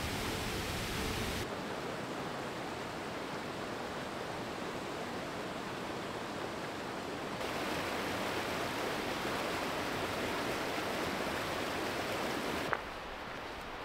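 Rushing water: a waterfall pouring into a rocky gorge, then a shallow mountain river running over boulders and rapids. The rush changes character abruptly about a second and a half in and again about seven seconds in, and near the end it drops quieter after a short click.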